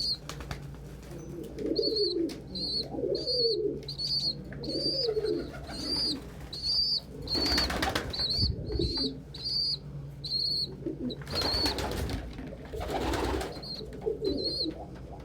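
Pigeons: a high, short peep repeating about twice a second over low cooing calls, with two bursts of flapping wings, about seven and eleven seconds in.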